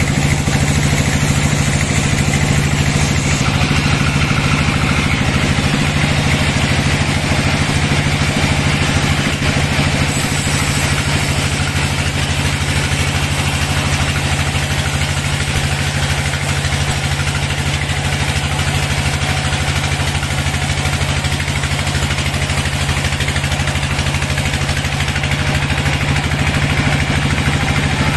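Band sawmill running steadily, its blade cutting lengthwise through a large log: a constant machine drone with the hiss of the saw in the wood.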